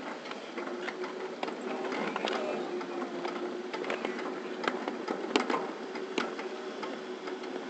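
A ride-on 7.5-inch gauge miniature railroad train running along the track: a steady whine with short, sharp clicks and clatter from the running gear and wheels on the rails.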